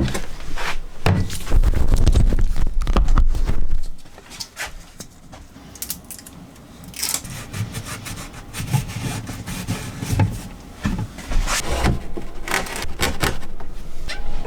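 Close handling noises: a plastic bottle and a strip of Velcro being pressed and fitted into place against a wooden cabinet. There are scattered knocks, clicks and rubbing, with a dense, dull rumble in the first few seconds.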